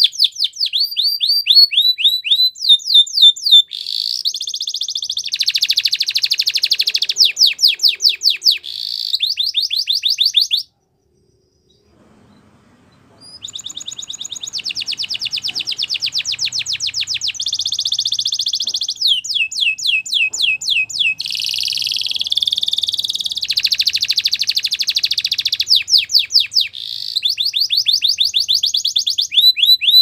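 Male canary singing a long song made of rapid runs of repeated, sharply falling notes and fast rolling trills. The song breaks off for about two seconds near the middle, then resumes.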